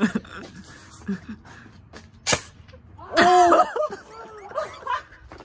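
A single sharp crack a little over two seconds in, then a person's loud yell about a second later, followed by shorter cries.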